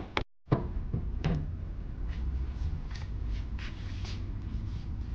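Hammer-and-scraper knocks on the Tesla Model S 85 battery pack's penthouse cover: two or three sharp metal knocks in the first second and a half, then faint scattered clicks and handling as the cover is worked loose, over a low steady hum.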